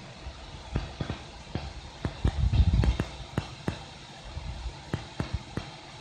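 The homemade Peltier fridge's cooling fan running with a steady hum. Over it come scattered sharp clicks and a brief cluster of louder low knocks about two and a half seconds in.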